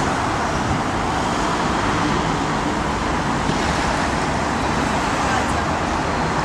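Steady road traffic noise: cars passing on a wide city street, an even rush of engines and tyres.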